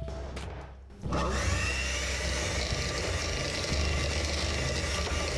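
Electric hand mixer starting up about a second in, its motor whining up to speed and then running steadily, beaters churning flour into creamed butter and sugar.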